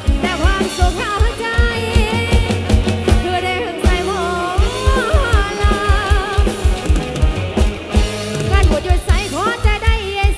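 A woman singing a wavering, ornamented melody into a microphone over loud amplified band music with a fast, driving kick-drum beat, played through a rot hae sound-truck's speaker system.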